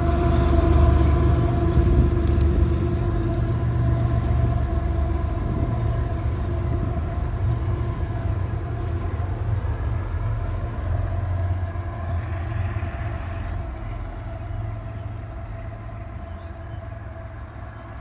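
Freight train pulling away after its rear locomotive, a GE ES44AH diesel, has gone by. A low rumble of engine and wheels on rail with a faint steady hum over it fades steadily as the train recedes.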